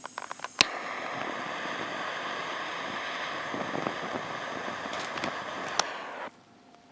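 Food sizzling in a hot pan over a campfire: a steady hiss that starts suddenly with a sharp click, has a few crackles through it, and cuts off abruptly near the end.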